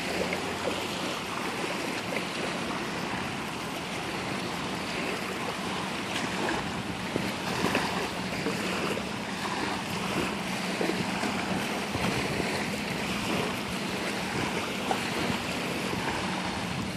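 Small waves lapping and washing onto a sandy, rocky river shore, with wind on the microphone. A steady low hum runs underneath.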